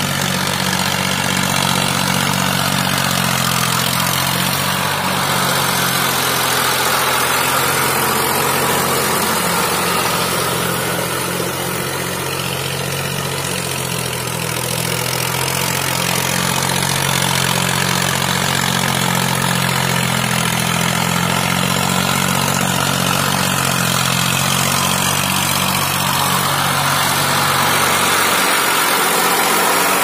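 Diesel farm tractor engine running steadily under load as it pulls a tiller through deep paddy-field mud on cage wheels, getting a little louder near the end as the tractor comes close.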